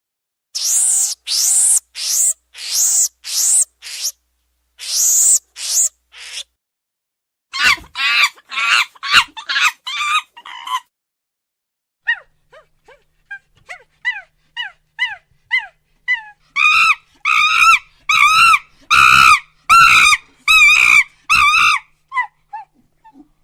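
Monkey calls in several separate runs with silent gaps between them: a string of shrill, high shrieks, then quicker chattering calls, then softer falling chirps, and finally a loud, rhythmic series of pitched hoots.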